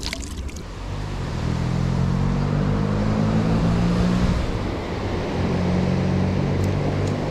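An engine running steadily, fading in about a second in and rising a little in pitch before holding level. A few short clicks right at the start.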